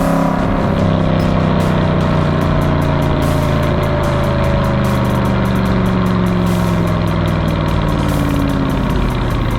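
Aston Martin V8 Vantage's V8 engine running, its pitch sliding down and then rising and falling again as the revs change.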